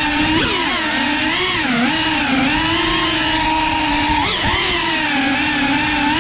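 GEPRC Cinelog cinewhoop FPV drone's motors and ducted propellers whining steadily, the pitch wavering up and down with small throttle changes, with a quick sharp rise and drop about four seconds in.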